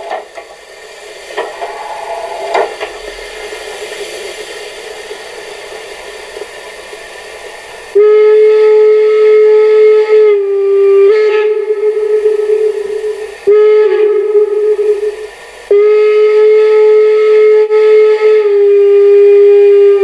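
Sound module of a Kiss model of an HSB class 99.23 steam locomotive playing its sampled steam sounds through the loco's speaker. First comes a steady hiss of steam that grows slowly louder. About eight seconds in, a loud steam whistle cuts in and sounds in long blasts broken by two brief gaps, stepping slightly in pitch.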